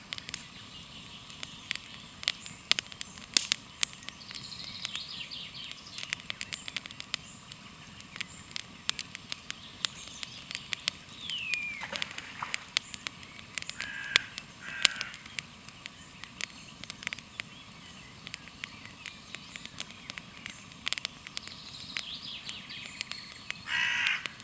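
Campfire crackling with frequent sharp pops over a faint steady hiss. Birds call now and then: a falling whistle about halfway, two short calls a few seconds later, and harsher cawing calls near the end.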